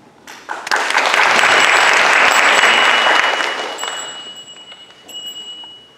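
Audience applauding, swelling about a second in and dying away over the next few seconds. A faint, high, steady ringing tone sounds over the second half.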